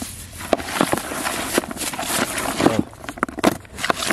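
Hands mixing damp soil and rice grains in a plastic basin: irregular rustles and sharp clicks, with a plastic bag crinkling as the rice is poured in.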